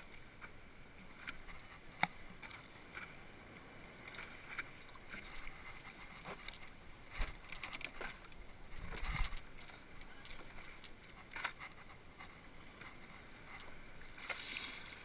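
Sea water splashing and lapping against a stand-up paddleboard as it is paddled by hand through small waves: irregular splashes, with a sharp knock about two seconds in and a couple of dull thumps around the middle.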